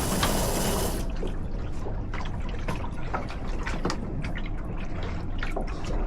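Water lapping and trickling against the hull of a small sailboat, with many small irregular splashes and drips over a low rumble of wind on the microphone. A brighter hiss cuts off about a second in.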